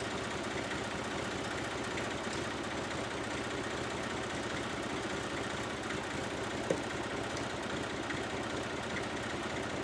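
Massey Ferguson 35 diesel tractor's engine idling steadily, with one light click about two-thirds of the way through.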